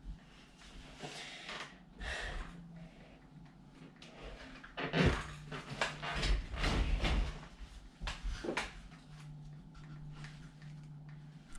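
Handling noise of objects being moved and set down on a surface: rustling, scrapes and knocks, busiest from about five to seven and a half seconds in, over a steady low hum.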